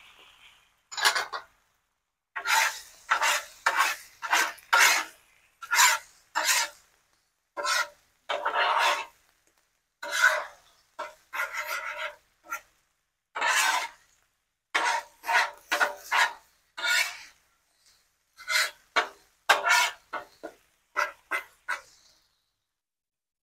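Spatula scraping and chopping on the steel cooktop of a Blackstone griddle, scrambling eggs: short rasping strokes, roughly one a second, with brief pauses between them.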